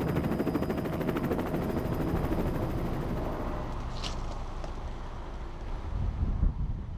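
Rally car engine running hard at speed, slowly fading. There is a brief sharp high sound about four seconds in.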